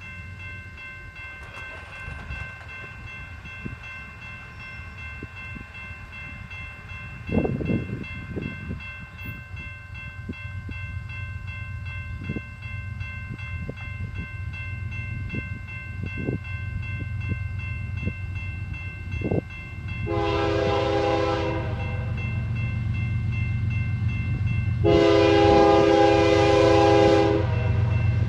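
Approaching BNSF diesel freight locomotives: a low engine rumble that grows steadily louder, with the lead unit's air horn sounding twice, a shorter blast about twenty seconds in and a longer, louder one a few seconds later.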